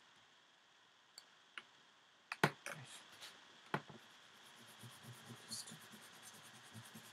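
Pen drawing on a surface: two faint ticks, then about two and a half seconds in a sharp click, followed by a run of light scratching strokes and small ticks.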